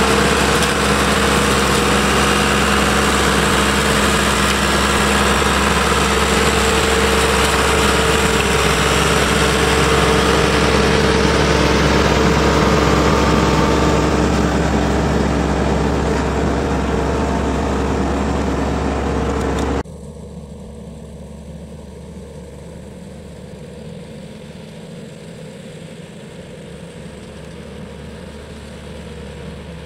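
Tractor engine and its side-mounted olive skirt trimmer running steadily, with a couple of held tones over the engine's hum. About two-thirds of the way through, the sound drops abruptly to a quieter, steadier engine note.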